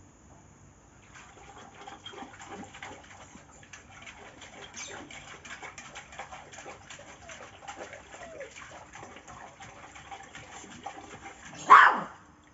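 A Thai Ridgeback dog splashing and biting at the water in a terracotta basin, muzzle dipping in: irregular sloshing and slurping with gurgles, starting about a second in. Near the end, one loud, short sound from the dog.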